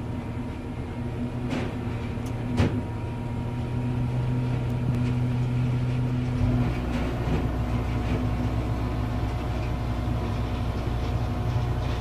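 Heavy wood-processing machine's diesel engine running steadily under load, with two sharp knocks in the first three seconds and a deeper rumble joining about six and a half seconds in.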